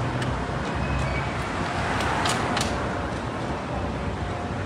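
City street traffic noise: a steady rumble of car engines and road noise, with a few short sharp clicks or taps, the loudest a little over two seconds in.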